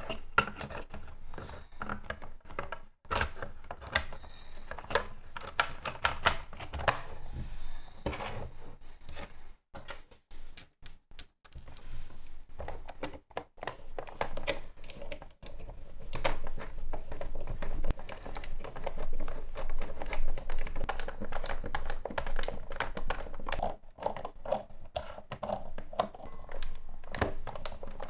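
Plastic parts of a DX Genesis Driver toy belt being handled and fitted back together: a dense run of small clicks and taps, with a few short pauses.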